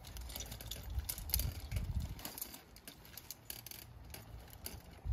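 Rope being hauled through a pulley hauling system, with irregular sharp clicks and rattles of the metal pulleys, rope grabs and carabiners as the line is pulled tight.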